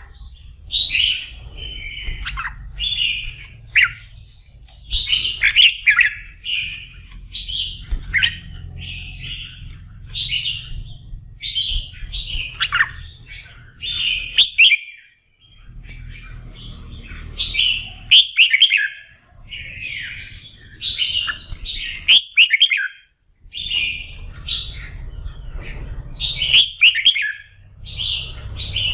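Red-whiskered bulbul singing in full voice, a steady run of short, bright warbled phrases about a second apart, over a low steady hum.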